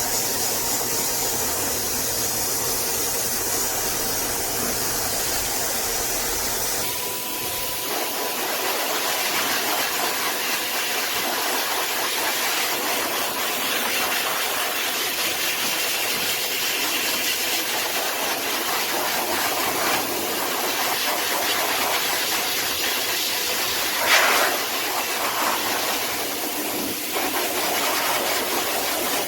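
High-velocity pet hair dryer blowing with a steady rush of air. Its tone shifts about seven seconds in, and there is a brief louder gust near the end.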